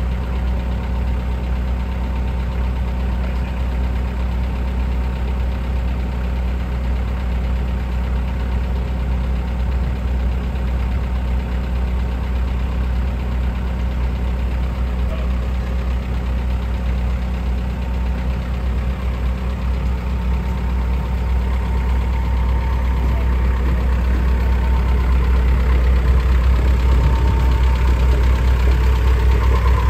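Forklift engines running steadily at low revs while lifting a heavy load, a continuous low hum that grows louder in the last third.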